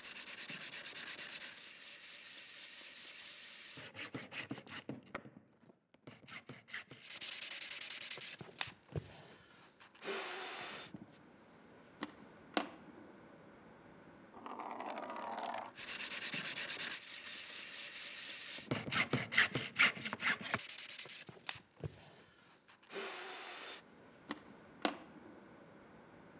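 Hand sanding: sandpaper rubbed back and forth in bursts of strokes a second or two long, with pauses between. Scattered light clicks and knocks fall in the pauses.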